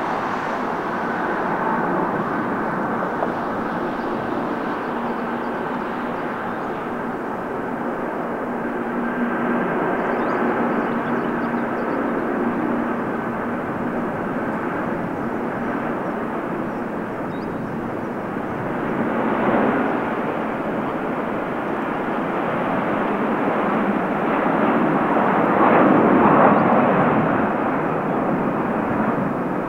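Airbus A330-300's Rolls-Royce Trent 700 turbofan engines on a departing jet, a continuous rushing jet noise with a faint steady whine in the first half. It swells about two-thirds of the way in and is loudest near the end.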